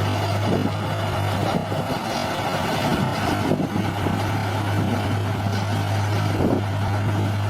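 Heavy machine's diesel engine running steadily under a deep constant hum, with a few short clanks scattered through, typical of a bulldozer at work.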